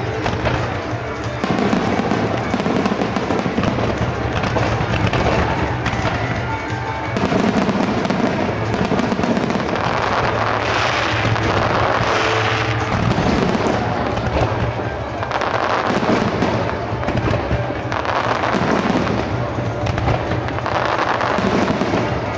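Star mine fireworks barrage: shell bursts and crackling follow each other almost without a break, swelling and easing in waves, with music playing underneath.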